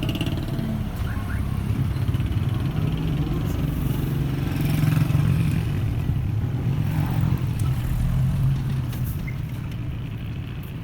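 Old car engine running at a steady idle, swelling a little twice and easing off near the end.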